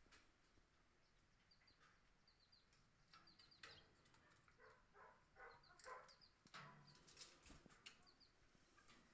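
Canaries giving faint, short, high cheeps, mostly in quick groups of two or three, with soft rustling and small taps in between.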